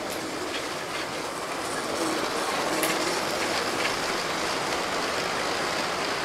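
LEGO trains running on plastic LEGO track: a steady rolling whir with faint clicks, growing a little louder about two seconds in as a freight train's wagons pass close.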